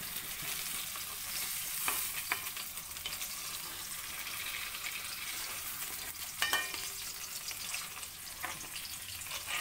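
Paneer cubes sizzling steadily in hot mustard oil in a wok, with a few sharp clicks of a plastic spoon against the pan as the pieces are lifted out.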